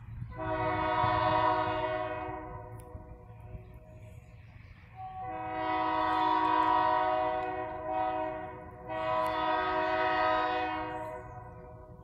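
Air horn of an approaching EMD GP38-2 diesel locomotive sounding three blasts of a multi-note chord: a long one, then after a pause of a couple of seconds a second long one that runs almost straight into a third. A low rumble lies underneath.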